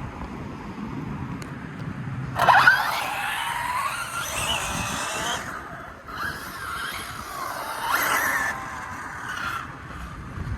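Electric 1/7-scale RC car on an 8S battery running in two passes, its motor whining and gliding up and down in pitch as it speeds up and slows. The first pass starts about two and a half seconds in, loudest at its start, and the second follows after a short gap.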